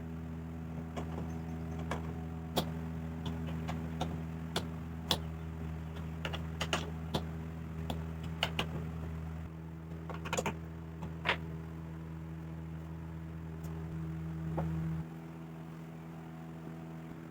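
A steady low hum, as of a running motor, with many small sharp clicks and taps over it; the lowest part of the hum drops away about fifteen seconds in.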